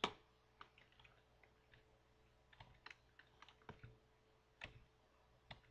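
Faint, irregular clicks of computer keys, about a dozen spread over several seconds, the first one the sharpest.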